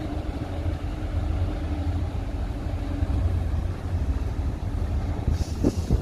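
Dump truck's diesel engine running steadily as a low rumble while the raised tipper body unloads earth, with a brief hiss and a short falling tone near the end.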